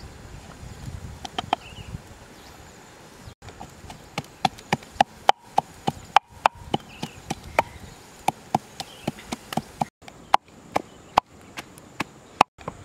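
Pestle pounding red chillies, lemongrass and yellow spice paste in a mortar: sharp knocks of wood on wood, a few at first, then steady pounding at about three strokes a second from a few seconds in.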